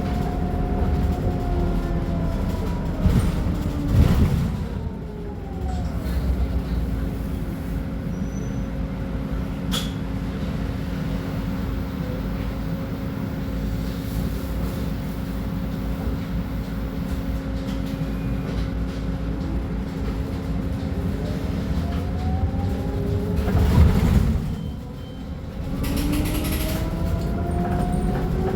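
Scania K310UB city bus drivetrain: a whine falls away as the bus slows to a halt, with a loud burst of noise about four seconds in. It then idles steadily for about twenty seconds. Another loud burst comes near the end, and the whine rises again as it pulls away.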